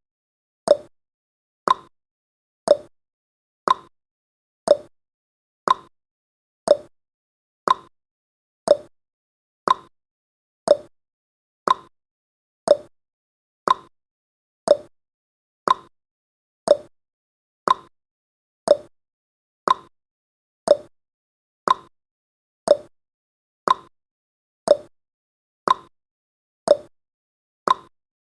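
Countdown timer's ticking sound effect: one short tick every second, steady and even.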